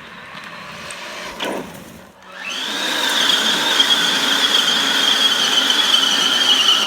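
RC car's electric motor and drivetrain running at speed: after a quieter stretch, a loud high whine comes in about two seconds in and holds steady, easing slightly in pitch, until it cuts off suddenly at the end.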